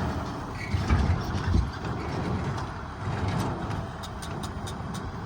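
Tractor and baling machinery running, a low steady engine rumble. A couple of heavy clunks come about a second in, and a run of quick light clicks, about five a second, follows in the second half.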